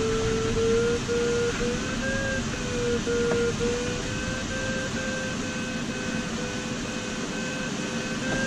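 Glider's audio variometer sounding its climb tone, a steady beep broken into short pulses whose pitch wavers slightly, over the steady rush of air past the cockpit canopy: the beeping signals the glider is climbing in lift.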